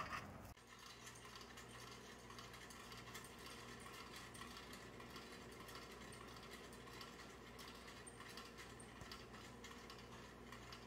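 Near silence: a faint steady hum with light ticks scattered through it.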